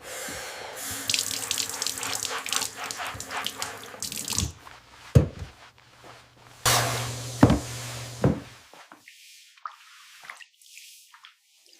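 Water running and splashing, over a low steady hum, with two sharp knocks midway. It stops abruptly about three quarters of the way through, leaving a few drips.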